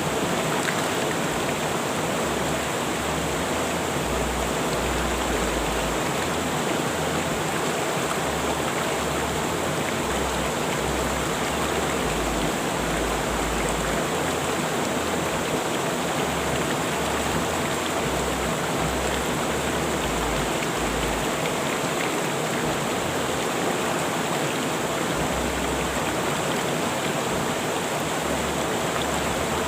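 River water rushing, a steady, even wash of noise.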